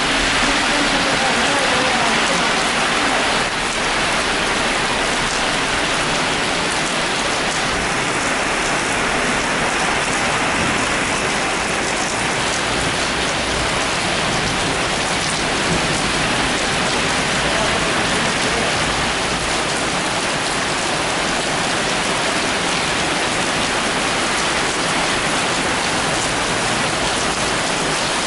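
Heavy rain pouring onto a paved street and pavement: a dense, steady hiss that never lets up.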